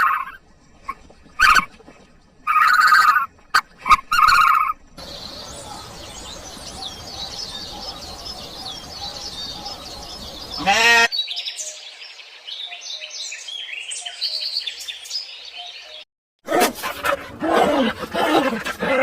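A string of animal sound clips with sudden cuts between them. The longest stretch, from about five seconds in to about sixteen seconds, is birds chirping and twittering, broken by one loud pitched call about eleven seconds in. It opens with a run of short repeated calls and ends with a different animal calling.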